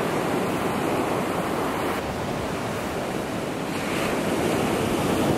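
Heavy ocean surf breaking on the shore below, a steady rushing noise that swells a little partway through.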